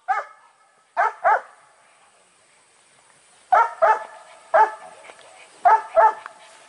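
Hunting dog barking on a wild boar hunt: short high barks, mostly in quick pairs, about eight in all, with quiet gaps between.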